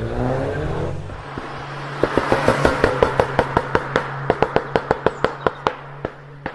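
Car engine idling while its exhaust crackles with a rapid run of sharp pops, about five a second, slowing and fading over some four seconds.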